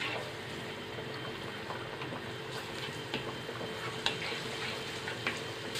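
Minced garlic frying gently in a little oil in a nonstick pan, still pale before it starts to colour, with a soft steady sizzle. A wooden spatula stirs it, giving a few light taps and scrapes against the pan.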